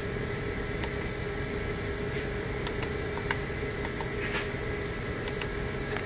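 Water-source heat pump water heater running steadily, its VFD-driven compressor turning at the slower 35 Hz speed along with the blower: an even machine drone with one constant tone, running smoothly. A few faint ticks on top.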